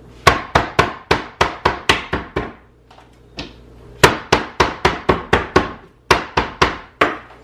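Lemongrass stalks being pounded on a plastic cutting board with the handle of a thick kitchen knife, bruising them for a brine. The knocks are sharp, about three a second, in three runs with brief pauses about two and a half and six seconds in.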